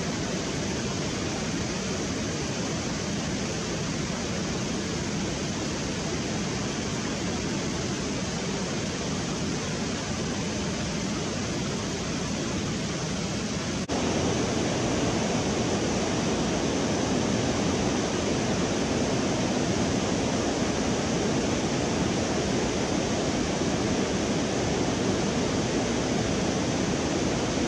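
Steady rush of fast-flowing river water churning along, then, about halfway through, a louder, fuller rush of water pouring over a river weir.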